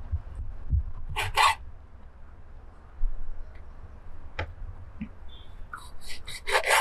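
Large kitchen knife slicing raw meat on a wooden cutting board: short rasping strokes, a pair about a second in and a quick run of them near the end.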